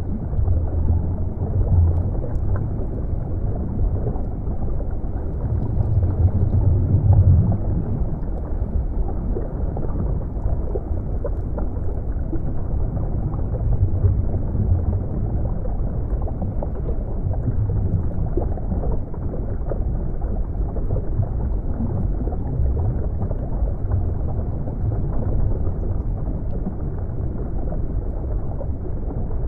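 Underwater ambience: a deep, muffled rumble of moving water that swells and eases every few seconds, with nothing above a low hush.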